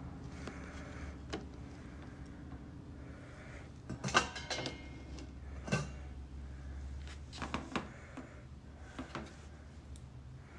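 Scattered sharp clicks and knocks of items being handled on a countertop, loudest in a quick cluster about four seconds in, with single ones near six, seven and a half and nine seconds, over a low steady hum.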